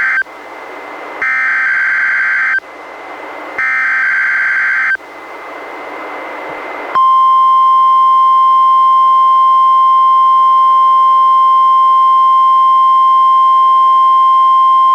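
NOAA Weather Radio alert signal on a Reecom R-1630 weather radio. First comes the tail of one SAME digital header burst, then two more, each a harsh buzzy data burst about a second and a half long followed by about a second of radio hiss. About seven seconds in, the steady 1050 Hz warning alarm tone starts and holds, loud and unbroken.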